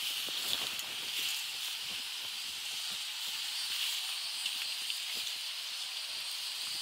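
Steady high-pitched outdoor hiss of an insect chorus, with a few faint ticks.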